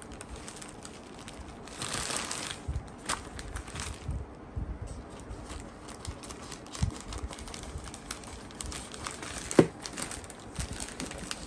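Black plastic mailer pouch crinkling and rustling as it is handled and cut open with small scissors, with many small clicks. A single sharp click late on is the loudest sound.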